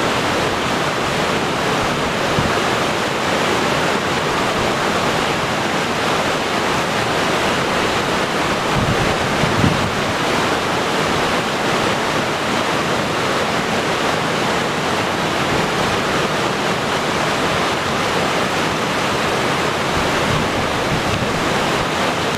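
Waterfall in high flow, a steady loud rush of falling water heard from close below, with brief low thumps of wind or spray hitting the microphone about nine to ten seconds in.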